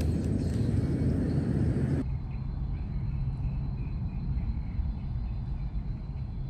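Outdoor ambient noise with a steady low rumble. About two seconds in the sound changes abruptly, losing its higher hiss, and a quieter rumble carries on.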